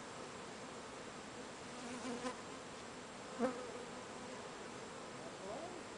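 Honeybee (Apis mellifera) swarm buzzing steadily as it settles into a hive box, with a short tap about three and a half seconds in.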